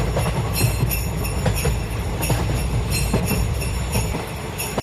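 Sleigh bells jingling steadily over a low rumbling clatter, both cutting off suddenly at the end.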